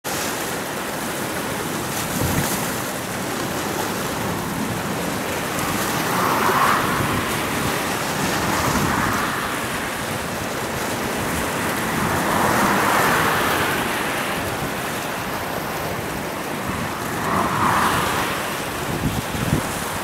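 Wind and choppy waves on open water: a steady rushing that swells every few seconds, with wind buffeting the microphone.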